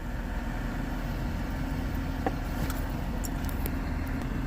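Steady low rumble like a car engine idling, with a few faint clicks and rustles of a window punch being fumbled out of a pocket.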